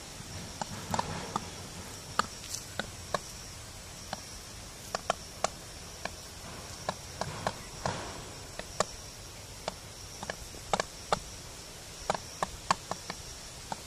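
Irregular sharp taps and knocks, a couple of dozen of them, some in quick pairs: Indian peafowl striking with their beaks at a snake on dry bare ground.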